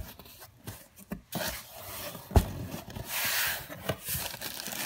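A cardboard shipping box being opened by hand: flaps folded back, with cardboard and plastic air-pillow packing rubbing and scraping as the contents are handled. One sharp knock comes about two and a half seconds in, and there is a louder stretch of rustling a little after.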